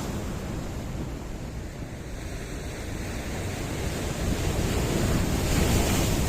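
Sea surf washing in against rocks, a steady rush that swells as a wave breaks near the end, with wind rumbling on the microphone.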